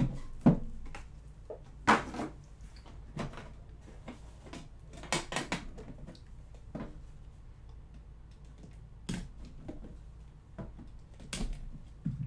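Hands handling a trading-card box: scattered knocks, taps and scrapes as the box lid is worked open and a plastic card case is slid out, the loudest knocks near the start and about two seconds in.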